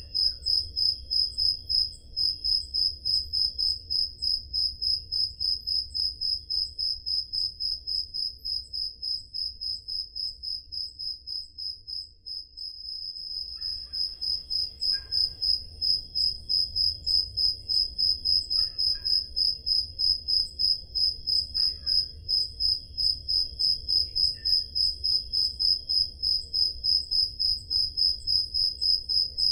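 Crickets chirping in a steady, even pulse of about three chirps a second on one high note. The chirping fades briefly about halfway through, then comes back. Faint short calls sound lower down now and then.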